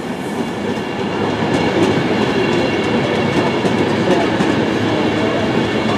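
Class 390 Pendolino electric train running into the platform, its wheels rolling and clicking over the rail joints; the sound grows louder over the first couple of seconds and then holds steady.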